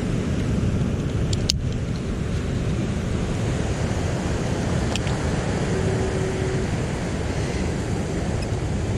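Steady low rumble of wind on the microphone mixed with ocean surf washing over the rocks, with a sharp click about a second and a half in and a fainter one near five seconds.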